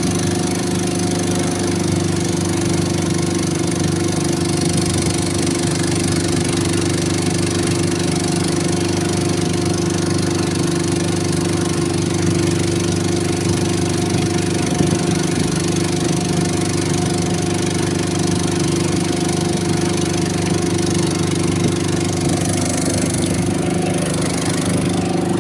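Small boat's motor running steadily at one pitch as the boat cruises, with water rushing and splashing along the hull.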